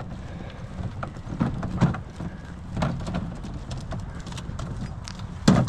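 Irregular knocks and clatter, with a louder thump about five and a half seconds in.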